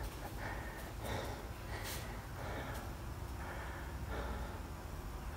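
A few soft breaths close to the microphone, about one a second, over a faint steady low rumble.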